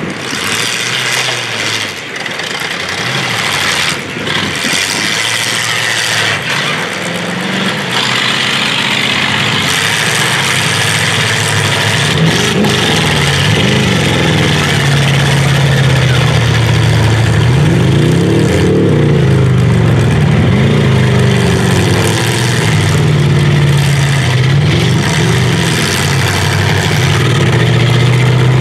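Demolition derby cars' engines revving up and down under hard throttle, with several sharp crashes of cars ramming each other in the first half, over a steady roar of engine and tyre noise.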